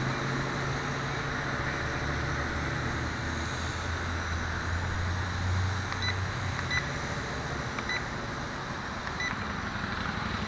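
WLtoys V262 quadcopter's motors and propellers humming steadily in flight over wind noise, the low hum easing off about two-thirds of the way through. Several short high electronic beeps come between about six and nine seconds in.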